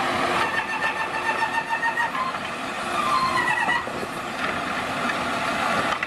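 An automated side-loader garbage truck's diesel engine running, with whining tones from its hydraulic arm that shift in pitch, one falling away about three and a half seconds in, as the arm lowers a wheelie bin.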